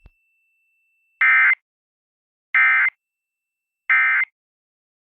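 Emergency Alert System end-of-message code: three short, identical bursts of SAME digital data tones, a little over a second apart, signalling that the alert is over.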